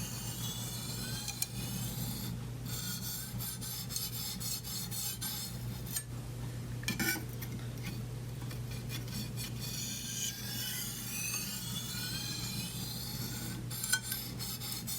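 Chef's knife edge being stroked back and forth on a fine black Arkansas whetstone, a continuous gritty scraping with a crunching sound in it and a few sharp clicks. The crunching is the burr breaking off onto the stone.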